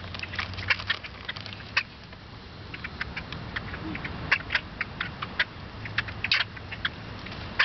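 Birds giving many short, high-pitched squeaky calls in quick, irregular succession, over a steady low rumble.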